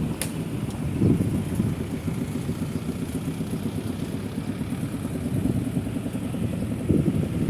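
Busy city street traffic: a continuous rumble of motorbike and car engines and tyres, with louder passes about a second in and again near the end, and a short sharp click just after the start.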